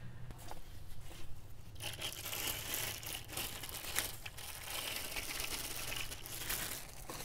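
Clear plastic packaging bag crinkling and rustling as it is handled and pulled open around the chainsaw's parts. It is loudest and most continuous from about two seconds in until shortly before the end.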